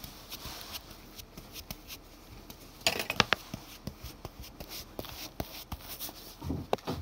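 Hands pressing, patting and flattening sticky freshly pounded mochi dough, with scattered clicks and taps, a quick cluster of sharp clicks about three seconds in, and a few soft thumps near the end.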